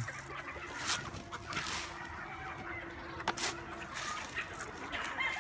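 A flock of hens and roosters clucking, with a few sharp clicks among the calls.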